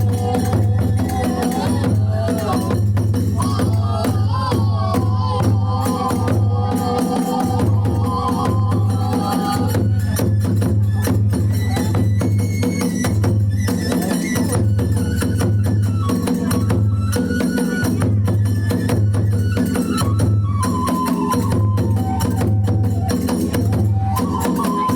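Kagura hayashi music at full tempo: a large taiko drum beaten in a steady driving rhythm, tebyoshi hand cymbals clashing rapidly over it, and a fue bamboo flute playing a wavering melody line.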